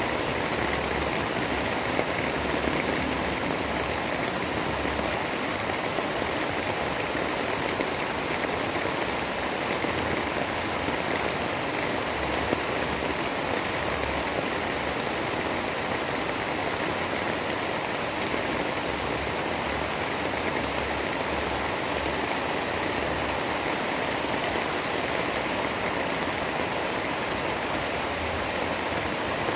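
Steady, even rushing hiss of a storm ambience, like heavy rain, with no thunderclaps or other distinct events.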